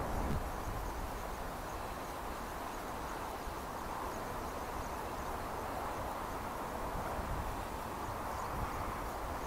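Steady outdoor background noise: an even hiss with a low rumble underneath.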